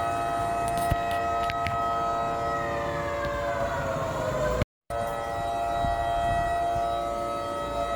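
Curfew warning siren sounding: a held multi-tone wail that slides down in pitch a few seconds in, cuts out for a moment just before halfway, then comes back steady and starts falling again near the end. The siren signals the nightly 10 pm lockdown curfew.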